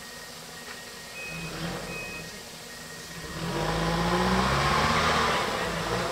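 Mitsubishi L200 pickup's engine revving under load as it crawls up a steep, rocky mud climb. It runs low at first, then the revs rise and it grows loudest from about three and a half seconds in before easing off near the end.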